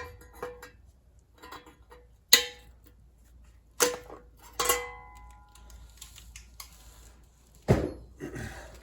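Sheet-metal muffler shield of a John Deere L130 lawn tractor being bent and worked into place by hand: light metallic clicks and scrapes, with three sharper clanks that ring briefly, and a dull thump near the end.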